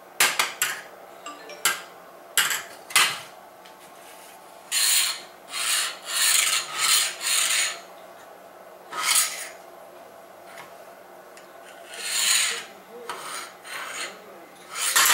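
Metal grilling tools handled by a baby on a tile floor. Several sharp clacks come in the first three seconds, then repeated rasping scrapes as a tool is rubbed and dragged across the tiles.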